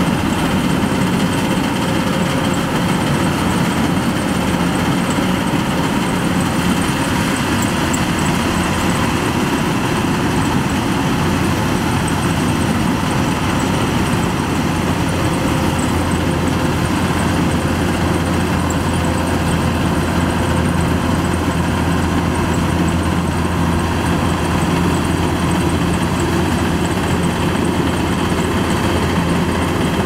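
Kubota DC-105X crawler combine harvester running steadily as it cuts rice, its diesel engine and threshing machinery giving an unbroken drone. A low hum in it becomes stronger about halfway through.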